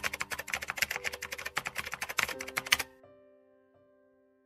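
Rapid typing-like clicking over a few sustained musical notes. The clicking stops about three seconds in, leaving a held chord that fades out.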